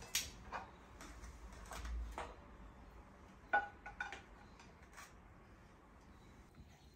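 Kitchen dishes and utensils clinking and knocking: a handful of separate clinks, the loudest about three and a half seconds in with a short ring.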